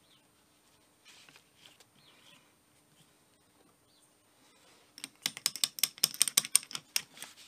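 Steel cross pin being worked out of an open Dana 44 differential carrier, with the spider gears shifting as it goes. There are a few faint handling sounds, then about five seconds in a quick run of sharp metallic clicks and rattles for about two seconds.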